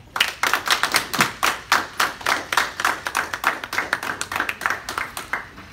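Small audience applauding, one person's claps close and distinct among the others; the applause starts just after the opening and dies down near the end.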